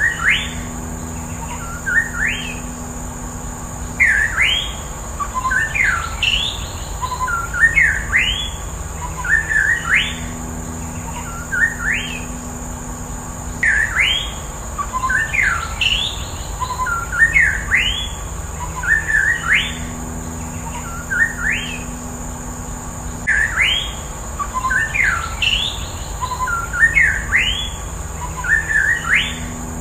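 White-rumped shama (murai batu) singing: short phrases of quick rising whistled notes, repeated every second or two, over a steady high-pitched drone.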